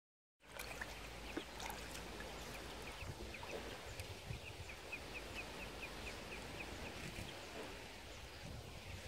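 Muscovy ducklings peeping softly in short, high notes over faint outdoor background. A few peeps come scattered at first, then about a second into the middle a steady run of peeps comes about four a second for some three seconds.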